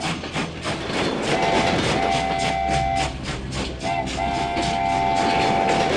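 Diesel locomotive horn sounding a chord in several blasts: a short one, a long one, a brief blip, then another long one. Under it, the wheels clickety-clack over the rail joints at about four clicks a second as the train gets moving.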